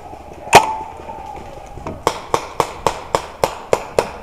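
A paintball marker firing a rapid string of about nine shots, roughly four a second, preceded by one louder sharp crack about half a second in.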